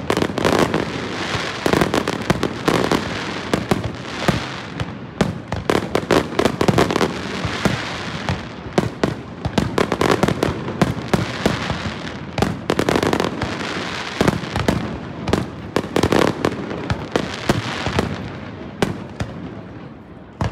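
Aerial firework shells bursting in a rapid, continuous barrage of bangs and crackles, thinning out near the end.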